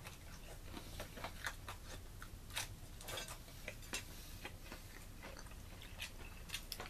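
A person biting and chewing a crunchy, well-done slice of baked frozen pizza: faint, irregular crunches and mouth clicks.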